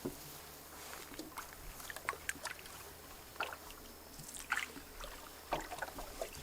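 Canoe paddling: the paddle dipping and dripping water, with scattered short splashes and knocks.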